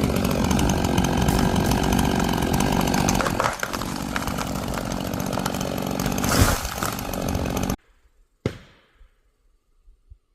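Stihl chainsaw running at high revs while cutting a tree, dipping briefly about three and a half seconds in and cutting off abruptly near the end. A single sharp thump follows the cut-off.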